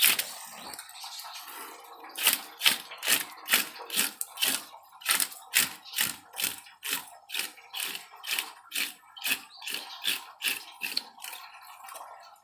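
Scaling a large carp by hand: a wooden-handled scaler rasps across the fish's scales in quick, regular strokes, about two and a half a second. The strokes begin about two seconds in and stop near the end.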